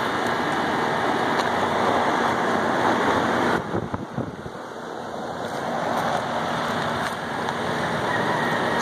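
Steady rushing air noise that dips for a few seconds about halfway, then builds back.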